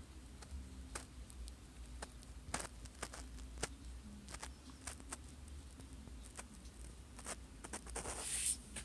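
Scattered light clicks and taps, irregular and well apart, over a steady low hum, with a short scraping rustle near the end.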